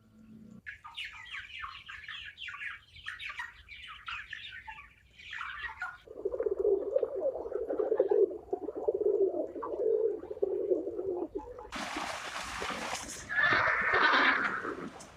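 A succession of different animal calls. First comes a quick run of falling bird chirps for about five seconds, then a lower rippling call. Near the end there is a short burst of noise and one loud call.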